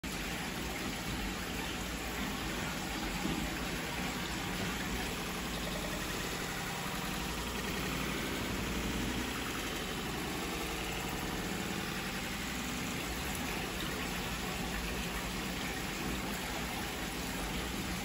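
Steady hiss of running water with no distinct events.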